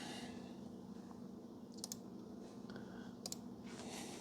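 Quiet room tone with a steady low hum and two brief, faint clicks, about two seconds and three seconds in.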